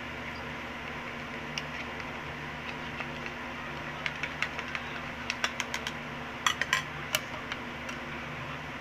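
Thin plastic ice candy bags and a plastic funnel being handled while the bags are filled, giving a run of sharp clicks and crinkles from about four to seven seconds in, over a fan's steady hum.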